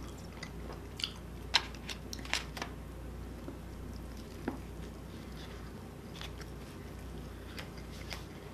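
A person chewing and biting food close to the microphone: scattered sharp wet clicks and smacks of the mouth, most of them in the first three seconds.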